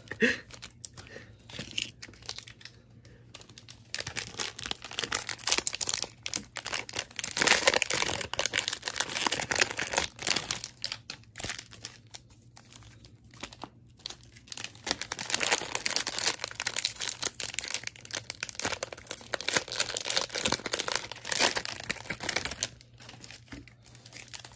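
Plastic trading card pack wrappers crinkling and tearing as Topps Chrome hanger packs are ripped open, in busy spells of rustling with short lulls between.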